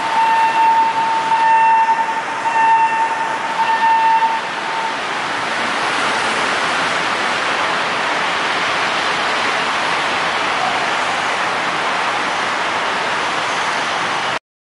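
Rail-milling road-rail truck moving along the track: a pitched horn-like tone sounds in about five long blasts with short breaks over the first four seconds or so, then a steady rushing running noise continues until the sound cuts off abruptly near the end.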